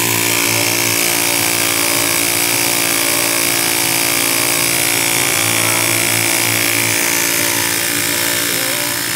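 Washing-machine motor converted into a generator, spinning with a steady, loud hum and whine.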